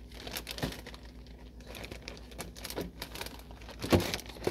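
Plastic packaging crinkling and rustling as cheese packages and bags are handled in a refrigerator drawer, in many short crackles, with a loud knock about four seconds in.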